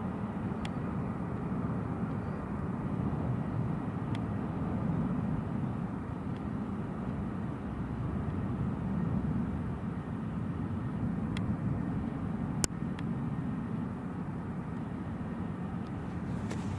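Steady low rumble of distant jet airliner engines, slowly swelling and easing, with a few sharp clicks, the loudest about three-quarters of the way through.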